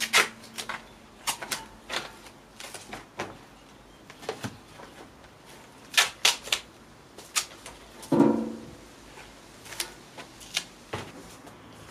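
Crackling and crinkling of a large printed poster sheet being handled and pressed against a wall: sharp, irregular clicks, with a short, louder rasp with a pitch to it about eight seconds in.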